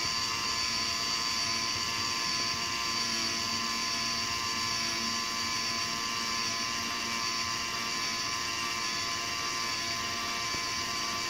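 Geared DC motor, about 30-to-1, turning a threaded lead screw: a steady, loud mechanical whir made of several fixed tones as it raises the steak platform off the grill once the meat has reached temperature. It cuts off suddenly at the end.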